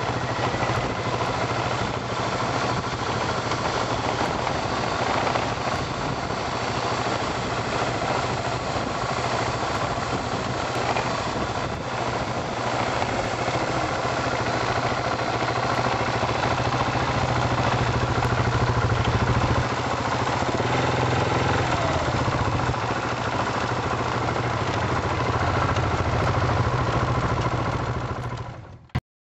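Motorcycle engine running steadily while riding, heard from on the bike with a constant rush of wind noise over it. The sound cuts off suddenly near the end.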